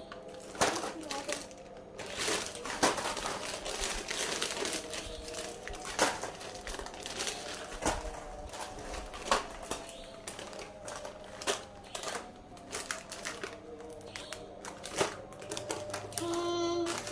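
Plastic snack packaging crinkling and crackling as it is handled and opened, with many sharp clicks and rustles. A short pitched tone, about a second long, comes near the end.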